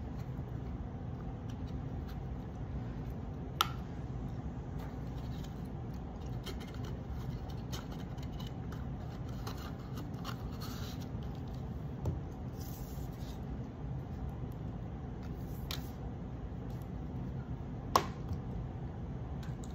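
Small lidded boxes being handled on a wooden table: light rubbing and scraping, with a few sharp taps, the loudest near the end. A steady low hum runs underneath.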